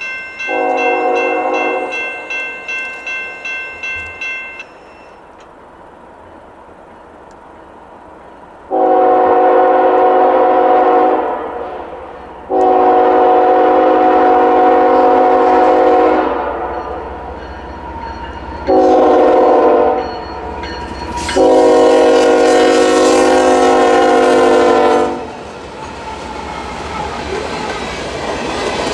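Diesel freight locomotive horn sounding the grade-crossing signal, long, long, short, long, followed by the rising rumble and clatter of freight cars passing. A railroad crossing bell rings rhythmically at the start and stops about five seconds in.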